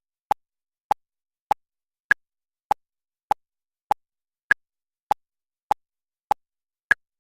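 Short electronic beeps at a steady beat of about 100 a minute, every fourth beep higher in pitch than the three between.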